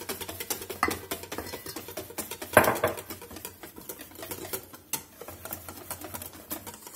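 Whisk beating a wet flour batter in a stainless steel mixing bowl: rapid clicking and tapping against the metal, with one louder clink about two and a half seconds in.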